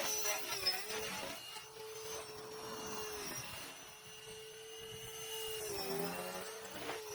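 GAUI X3 electric RC helicopter running, its motor and drivetrain giving a steady whine that dips briefly in pitch a few times.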